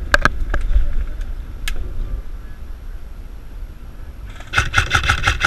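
Airsoft electric rifle firing: a few single sharp shots near the start, then a full-auto burst of about ten shots a second over a steady gearbox whine, starting about four seconds in.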